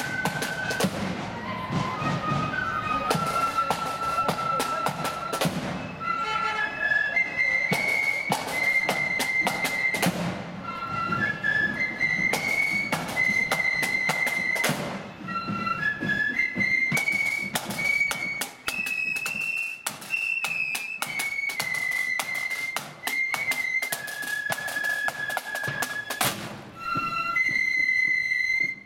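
Marching flute band playing a tune: flutes carry the melody over rattling snare drums and the beat of a bass drum.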